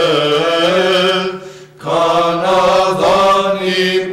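Greek Orthodox hymn chanted in Byzantine style, the melody sung over a low note that is held steady beneath it. The singing breaks for a short breath about one and a half seconds in, then goes on.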